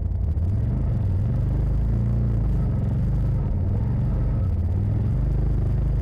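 Side-by-side UTV engine running under load, heard from inside the cab, its revs rising and falling as the machine crawls up a steep, rocky trail.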